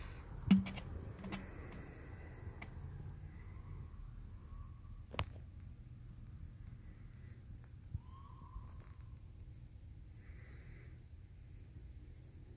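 A cricket chirping steadily, about three short high chirps a second. A low thump about half a second in is the loudest sound, and two sharp clicks come later.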